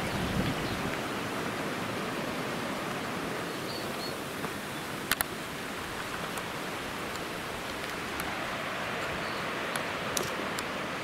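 Steady, even rushing noise outdoors, with a couple of short sharp clicks about five seconds in and one near the end.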